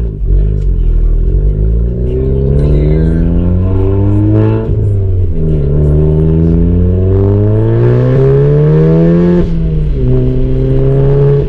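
Volkswagen Golf R's turbocharged 2.0-litre four-cylinder accelerating through the gears, heard from inside the cabin. The engine note climbs steadily, drops at an upshift about halfway through, climbs again, and drops at a second upshift about two seconds before the end.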